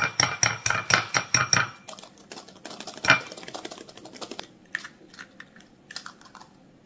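Wire whisk and egg clicking against a small glass bowl as the egg is forced onto the whisk's wires to crack it: a quick run of about nine taps, a sharper clink about three seconds in, then a few lighter taps.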